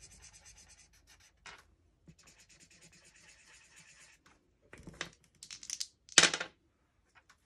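Felt-tip marker scratching on paper in quick short strokes as numbers are crossed off. Then a few clicks, a short rattle, and a brief louder clatter a little after six seconds in, as two dice are shaken and rolled.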